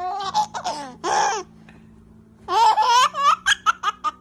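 A person laughing in two high-pitched bouts, the second breaking into quick short bursts of laughter near the end.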